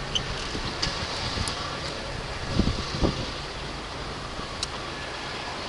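1989 Oldsmobile Cutlass Supreme engine idling steadily while still cold, before the piston slap that it develops only when warm. Two dull thumps come a little past halfway.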